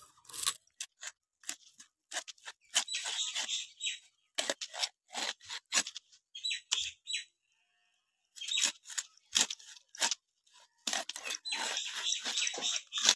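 Silver carp being scaled and cut on a boti, a fixed curved blade: bouts of quick scraping strokes as the fish is drawn against the blade, with sharp clicks between them and a short pause midway.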